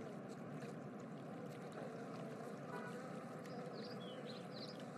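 Faint, steady outdoor background ambience, an even hiss like running water, with a few faint high chirps about three and a half seconds in.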